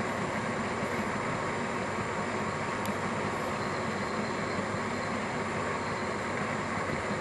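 Steady hum and rushing of a reef aquarium's pumps and water circulation, unchanging throughout, with one faint click about three seconds in.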